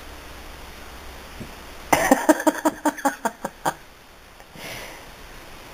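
A person laughing in a quick run of about a dozen "ha" bursts that fade away, followed by a breath out.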